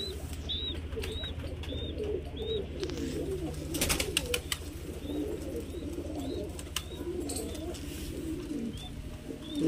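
Domestic pigeons cooing, several low warbling coos overlapping, with short high chirps repeated now and then and a brief clatter about four seconds in, over a low steady hum.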